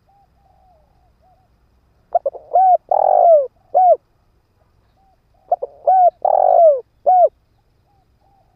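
Spotted dove cooing: two loud phrases about three seconds apart, each a quick run of short arched notes around one longer drawn-out coo, with soft low notes in the gaps. This is the male's cooing call, as used by a decoy bird to lure wild doves.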